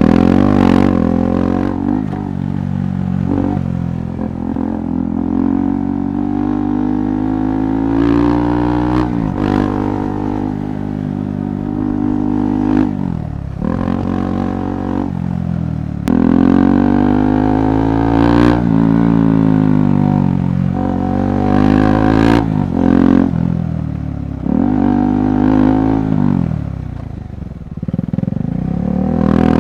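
KTM 390 Adventure's single-cylinder engine riding off-road, its revs climbing and dropping again and again as the throttle is worked. Occasional short knocks and clatter come from the rough trail.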